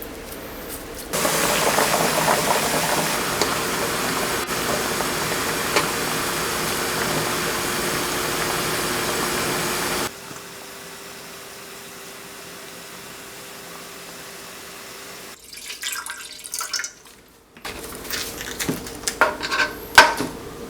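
Water running hard in a kitchen while potatoes are rinsed or drained, stopping abruptly about ten seconds in. A low steady hum follows, then clattering and knocks of kitchenware near the end.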